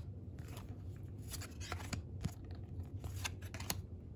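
Baseball trading cards being flipped through by hand, card stock sliding and snapping against card stock in a string of light, sharp, irregular flicks.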